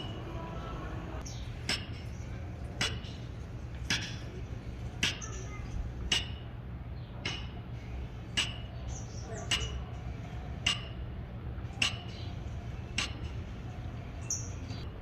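Sledgehammer striking a steel point chisel in a steady rhythm, about one blow a second, each blow a sharp metallic clink with a brief ring, over a steady low hum.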